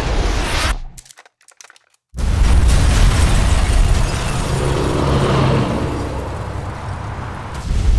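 Explosion sound effects. A loud blast rumbles and cuts off sharply about a second in. After a second of silence, another blast starts suddenly and rumbles on, slowly fading, and a fresh loud blast hits near the end.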